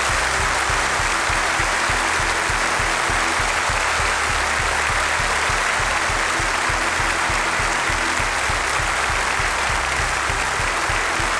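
Large audience applauding steadily, an even wash of clapping, with background music carrying a low, regular pulse underneath.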